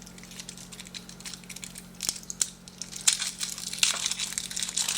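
Plastic packaging crinkling and tearing with scattered sharp clicks as AA batteries are unwrapped by hand, getting busier and louder in the second half.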